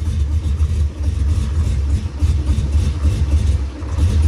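Truck engine running at low speed, idling and creeping, with a steady low rumble as the truck is backed up a little.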